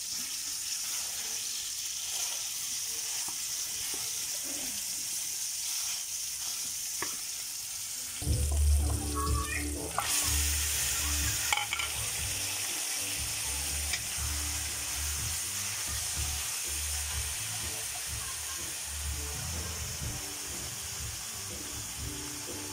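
Sliced tomatoes and onions sizzling in hot oil in a wok. About eight seconds in, raw pork ribs go in and the frying gets louder, with a low rumble under the sizzle, as the pork is stirred with a wooden spatula.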